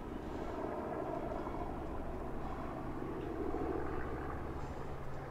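Steady drone of a B-25 Mitchell's two radial piston engines.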